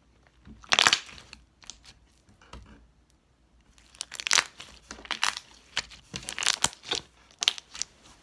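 Thick green slime squished and stretched by hand: one loud pop about a second in, then from about four seconds in a run of wet crackling clicks and pops.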